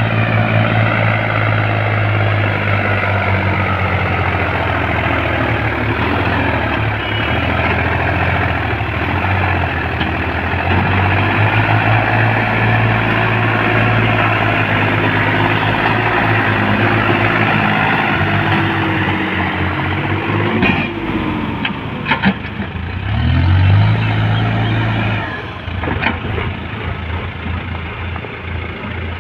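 Diesel engine of a JCB 3DX backhoe loader running steadily while working, its revs rising and falling about three quarters of the way through, with a few sharp knocks. The engine settles quieter near the end.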